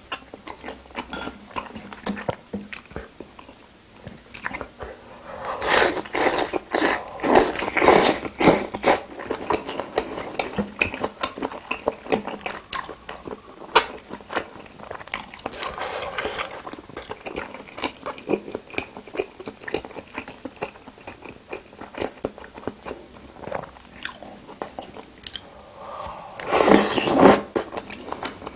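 Close-miked chewing and biting by a person eating, with many small wet clicks. A dense run of loud crackling bites comes about six to nine seconds in, and a shorter loud burst comes near the end.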